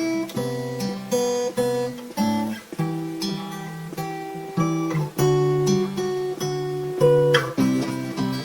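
Music: acoustic guitar playing a chord progression with no vocals, a new chord struck every second or so.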